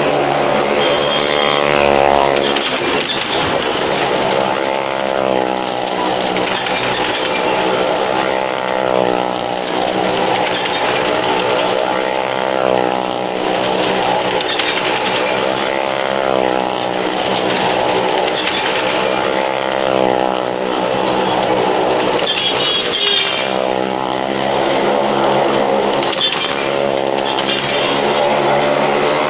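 Car and motorcycle engines running continuously as they circle the vertical wooden wall of a well-of-death pit, several engines overlapping, their pitch rising and falling over and over as they lap.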